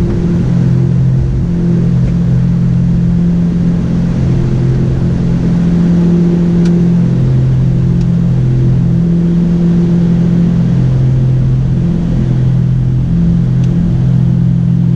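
Twin piston engines and propellers of a Piper Navajo Panther heard from inside the cockpit at climb power just after takeoff: a loud, steady drone with a slow wavering throb.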